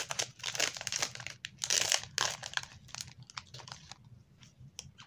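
Pokémon booster pack wrapper being torn open and crinkled, loudest about two seconds in, then thinning to a few light crackles.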